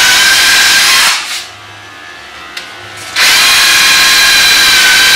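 Cordless drill with a 5 mm bit running at a steady whine as it bores a 12 mm-deep hole into a cabinet door panel. It stops about a second in and starts again about two seconds later.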